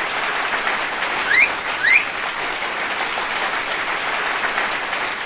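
Stand-up comedy audience applauding after the closing joke, with two short rising whistles about a second and a half in.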